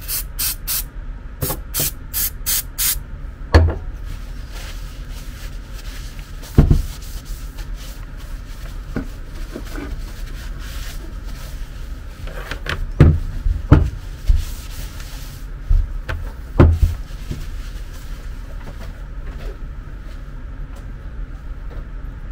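Aerosol spray can giving about six short spray bursts in the first three seconds, followed by rag wiping and handling of a bed's linear actuator, with several sharp knocks as it is moved about and set down on the bench.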